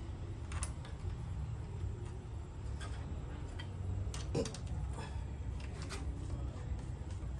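Scattered light metallic clicks and taps from parts being handled and fitted on the blade arbor of a RYU 7-inch miter saw. The clicks come at irregular intervals, with a small cluster about four seconds in, over a steady low rumble.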